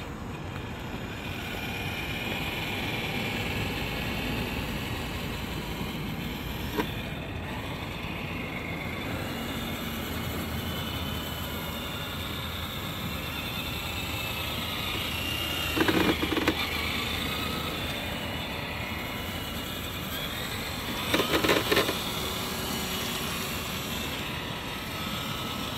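Traxxas Ultimate RC Hauler radio-controlled truck driving across asphalt: a steady electric motor and drivetrain whine over the sound of rolling tyres. Two short, louder rattles come in the second half.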